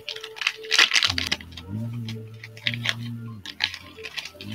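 Trading card pack wrapper crinkling and tearing as it is opened by hand, with low held humming tones between the crinkles.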